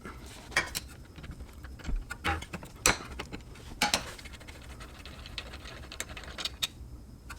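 A socket wrench working the 12mm brake caliper bolts on a car's rear brake: scattered sharp metallic clicks and clinks at uneven intervals.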